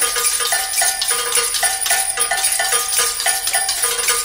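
Intro music: a quick tune of short pitched notes, about three a second, over steady bright high-pitched percussion.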